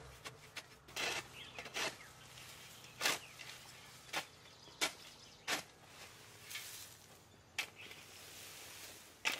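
Metal shovel blade scraping and scooping through dry leaves and dusty soil, with about nine rough scrapes, roughly one a second.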